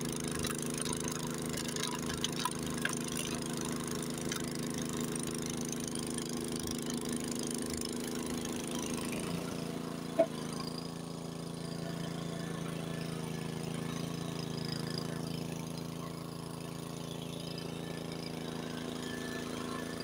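Honda HS80 tracked snowblower's single-cylinder engine running steadily under load as it drives through deep snow. Its note shifts lower about halfway through, with a single short click just after.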